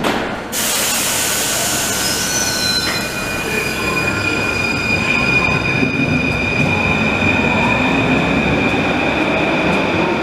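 Rubber-tyred Paris Métro train pulling out and running past at the platform edge: loud, even running noise that starts abruptly about half a second in, with a high steady whine coming in after about two to three seconds.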